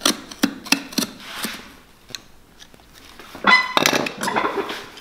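Utility knife clicking and scraping at the edge of a leather boot sole, then a louder squeaking creak of leather for about a second and a half near the end as the old sole is worked loose.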